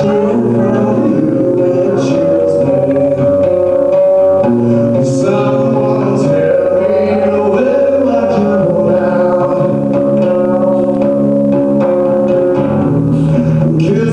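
A man singing a song while accompanying himself on an acoustic guitar, played live through a small PA system.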